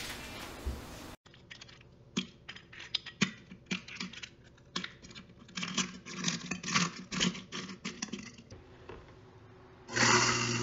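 Crushed eggshell pieces crunching and clicking as they are pushed into a kitchen sink's garbage disposal drain, a series of small irregular clicks. Near the end the garbage disposal is switched on and runs with a steady low hum and a loud rush.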